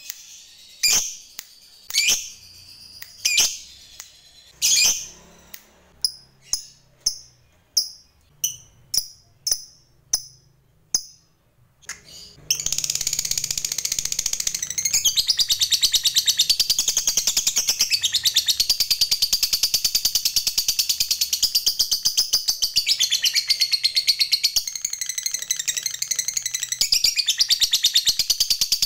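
Lovebird calling in sharp single chirps, at first about one a second and then quickening to about two a second. About twelve seconds in it breaks into a long, unbroken rapid chattering trill: the 'ngekek' that keepers prize in fighter lovebirds.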